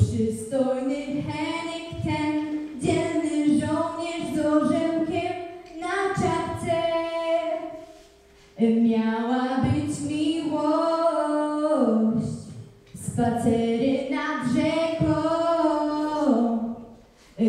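A young woman singing solo into a microphone, with no accompaniment heard. She sings in long held melodic phrases, pausing briefly about eight and twelve seconds in.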